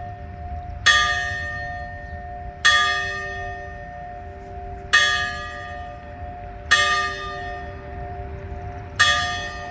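A church bell tolling five times, about two seconds apart, each strike ringing on and fading before the next.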